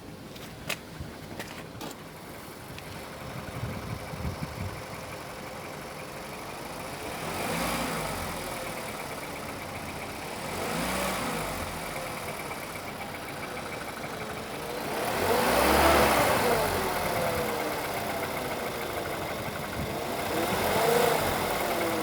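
Car engine idling and revved four times, each rev rising and falling back to idle, the third the longest and loudest; it is run up to bring out a knock in the engine. A few sharp clicks sound near the start.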